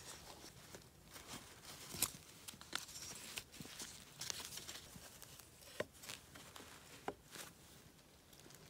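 Faint rustling with scattered light knocks and clicks, the sharpest about two seconds in and again about seven seconds in.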